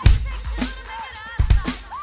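A beat played on a Roland V-Drums electronic kit with homemade chopped samples from a Roland SPD-SX: a heavy bass-drum hit at the start and another about a second and a half in, sharper hits between them, and short swooping pitched sample sounds over the top.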